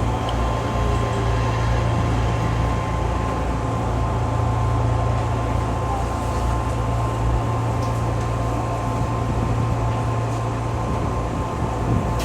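Odakyu 2000 series electric multiple unit running, heard from inside the car: a steady low rumble of the running gear with a steady tone above it. The deepest part of the rumble eases off a little over halfway through.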